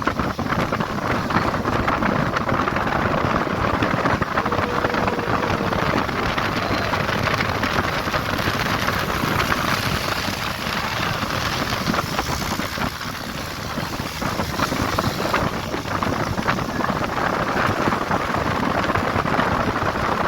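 Steady rushing of wind over the microphone, mixed with the road noise of a moving vehicle.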